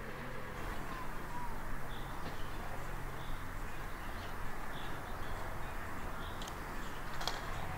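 Novitec-tuned Ferrari 812 Superfast's V12 idling with a steady low hum, while birds chirp in the background.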